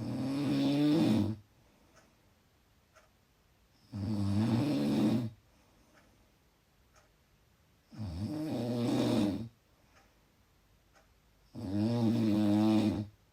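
Loud snoring: four long snores, evenly spaced about four seconds apart, each lasting a second and a half or less, with quiet between them.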